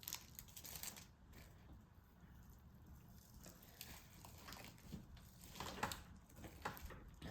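Faint crinkling and a few light clicks and taps as star-shaped confetti is added to a clear slime, in two short clusters: one at the start and one around two-thirds of the way through.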